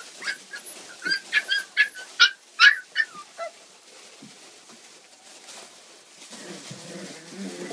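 Young puppies, almost four weeks old, yelping and whimpering in a quick run of short, high-pitched cries that fall in pitch. The cries start about a second in and last about two seconds, then die away.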